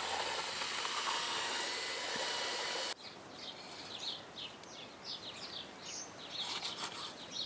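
Electric paddle mixer running steadily, stirring cement mix in a plastic bucket, then cut off abruptly about three seconds in. After that, small birds chirp repeatedly.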